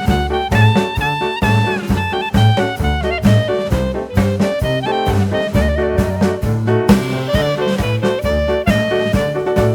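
Background music: an upbeat jazz tune with brass and a steady bouncing bass beat.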